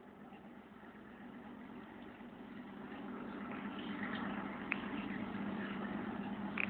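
Chicken dust-bathing: scratching and rustling in dry soil, growing louder about halfway through, with a few sharp ticks, over a steady low hum.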